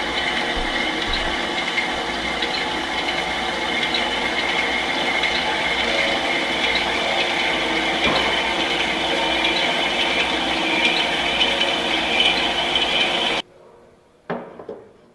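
Scotchman SU-280G metal-cutting bandsaw running steadily through a cut, a mechanical whine with a light rattle. About two seconds before the end it shuts off abruptly, which is the saw stopping itself at the end of the cut. Two short knocks follow.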